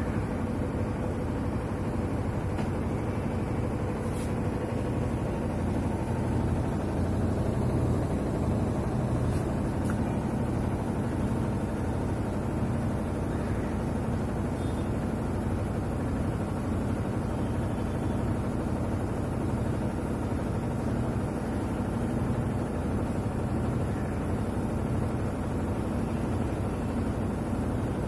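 Whirlpool White Magic Pro XL 800S washing machine running its spin cycle with a steady hum. The earlier noise is gone, cured by gluing the plastic part that was making it.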